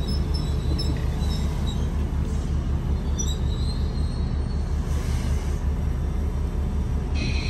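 Sydney Trains Waratah double-deck electric train pulling into the platform and stopping, with a steady low rumble and faint high whines in the first few seconds. A cluster of high tones starts near the end.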